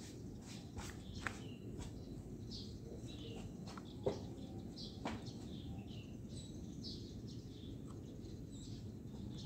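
Quiet outdoor background: small birds chirping over a steady low rumble, with a few sharp clicks, the loudest about four seconds in.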